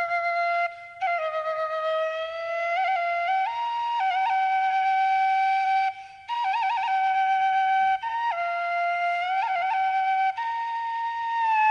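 Khlui, a Thai bamboo flute, playing a slow solo melody: long held notes decorated with quick trills and turns, broken by short breath pauses about a second in and again near the middle.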